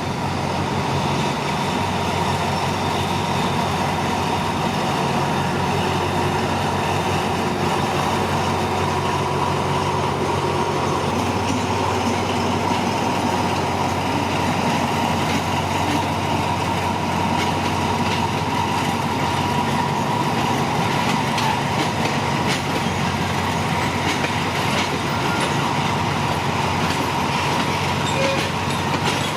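Diesel-hauled passenger train moving slowly out of the station: the locomotive's diesel engine drones steadily while the carriages roll, with a steady high whine over it.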